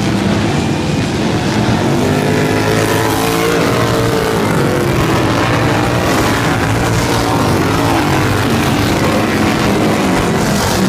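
Racing lawn mower engines running hard, their pitch rising and falling as the mowers go by.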